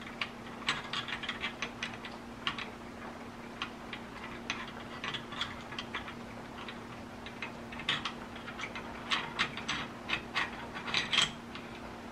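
Irregular light metallic clicks and scrapes as steel parts of an M1 Garand action are slid and fitted into the greased receiver by hand, the loudest cluster near the end. A steady low hum runs underneath.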